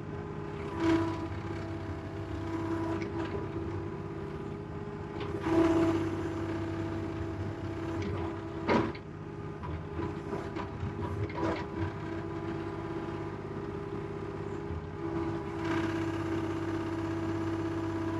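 Compact excavator's engine running steadily under the operator while the hydraulics work the bucket over trail dirt. Brief louder scraping knocks come about a second in, around six seconds and near nine seconds, and the engine tone rises under hydraulic load near the end.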